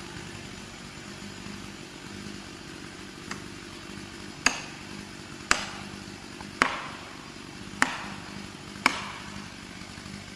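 Felling wedges being driven into the cut of a standing tree: five loud, ringing blows about a second apart, after a fainter first knock, to tip the tree over. A steady low engine hum runs underneath.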